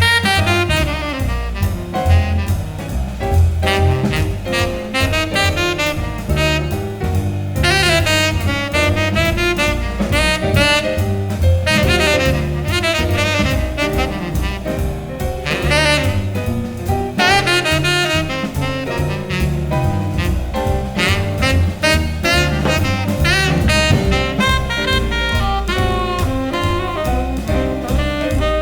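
Instrumental jazz: a saxophone playing the melody over a deep bass line and drums.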